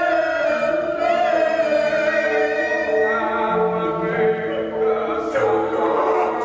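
Stage accompaniment music: several voices singing long held notes together, over low sustained notes that shift pitch a few times.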